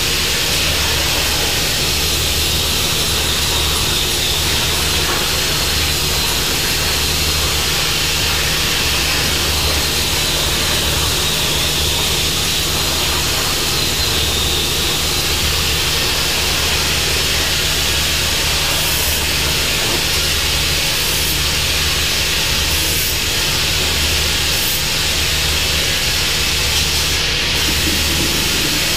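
Hypertherm 65 plasma torch cutting sheet steel on a CNC plasma table: a steady, loud hiss of the plasma arc and air jet, with a low steady hum underneath.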